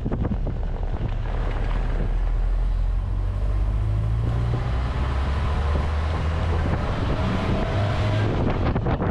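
1970 Land Rover Series 3 driving on the road: its engine and gearbox running steadily with the engine note shifting a few times, under tyre and wind noise that swells through the middle.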